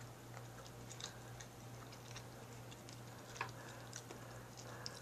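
A person chewing a mouthful of turkey and rice: faint, soft mouth clicks and small wet sounds, over a steady low hum.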